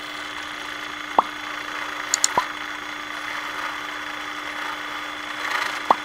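Power drill running steadily as a stepped drill bit cuts down through a vinyl LP record to an 8 mm hole in one pass, with three sharp clicks from the cut.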